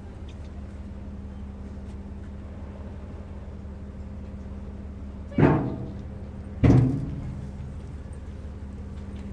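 Ferry engine droning steadily on board, with two heavy knocks about a second and a half apart, each ringing briefly before fading.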